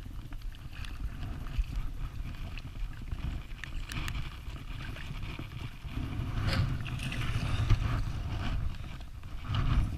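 Wind buffeting the microphone as a low, uneven rumble that grows louder for a couple of seconds past the middle, with scattered light clicks and rustles.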